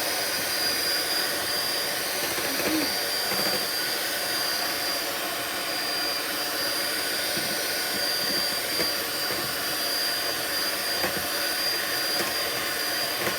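Electric mixer running steadily at one speed with a thin high whine, whisking a creamy kulfi mixture of cream and condensed milk in a bowl.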